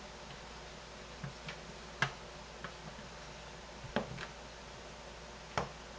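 Sharp knocks and clicks of a knife cutting firm, unsuperfatted homemade lye soap on a plastic cutting board, with soap pieces being handled: a few light taps and three louder knocks about two, four and five and a half seconds in.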